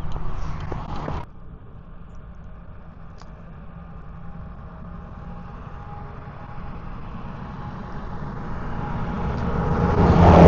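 A motor vehicle approaching on a nearby road, its engine and tyre noise growing steadily louder to a peak near the end. In the first second there is a burst of noise with clicks that cuts off suddenly.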